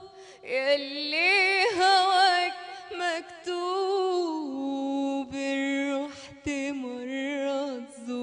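A woman singing solo in Arabic into a microphone, with no instrumental accompaniment. She holds long, ornamented notes with vibrato and sings wordless melisma, and the melody sinks to a lower sustained note about halfway through.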